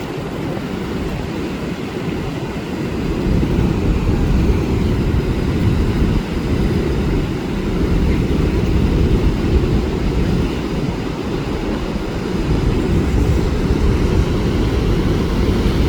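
Steady low rumble of heavy, cyclone-driven surf mixed with wind buffeting the microphone, growing a little louder about three seconds in.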